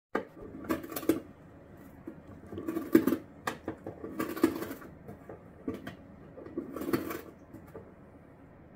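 A cat biting and chewing the corner of a cardboard box: crunching of cardboard in about four short bouts, the last about seven seconds in.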